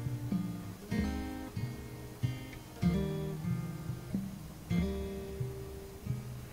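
Background music: acoustic guitar, chords struck every second or so and left to ring.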